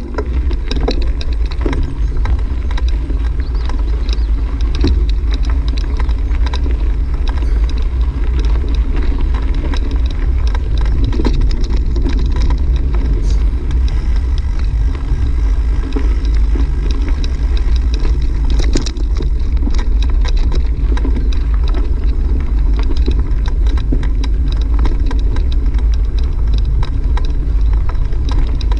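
Wind buffeting the microphone of a camera riding along a gravel dirt road, with a steady low rumble and tyres crackling and rattling over loose stones.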